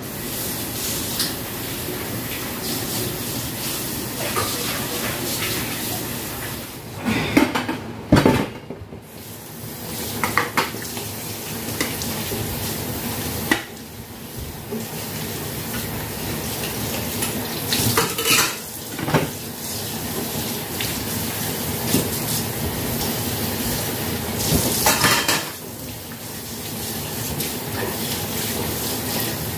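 Dishes being washed by hand at a stainless-steel sink: tap water runs steadily while bowls and plates are rinsed and clink against each other and the sink. There are several louder clatters of dishes, the first about a quarter of the way in, another past the middle and one near the end.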